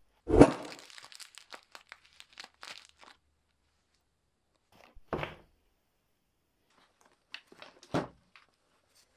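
Clothing and packaging handled up close: a loud rip like a Velcro pocket flap pulled open, then about three seconds of crinkling and rustling from a plastic snack packet and the vest fabric. Two more short, sharp rips or knocks come about five and eight seconds in.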